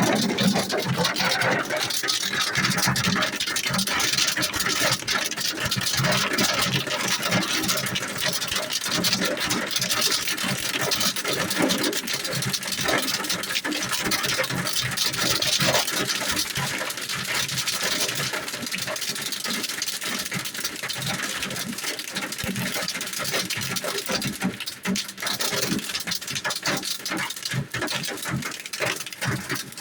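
Hailstorm: hailstones clattering down in a dense, steady patter of many small impacts, thinning a little in the last few seconds.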